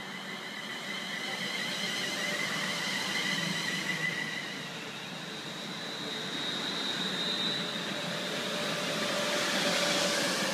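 London Midland Class 350 Desiro electric multiple unit drawing into the platform and slowing. The wheels rumble under several wavering high-pitched whines, and it grows louder as the train comes alongside near the end.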